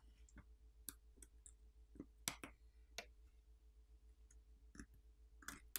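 Faint, scattered clicks, about seven of them, from a metal pry tool on a smartphone's charger port board as its flex cable and wire cable connectors are popped off.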